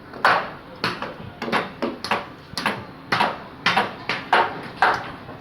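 Repeated hammer blows, about two a second and unevenly spaced, each a sharp knock with a short ring.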